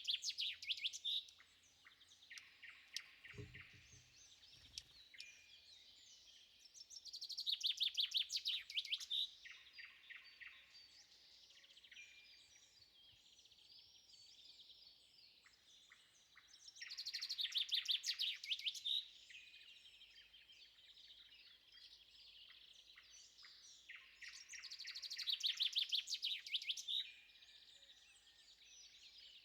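Songbirds singing at dawn: one bird repeats a loud song of rapid notes that grows louder, four times about nine seconds apart, with quieter chirps from other birds in between. A brief low thud about three seconds in.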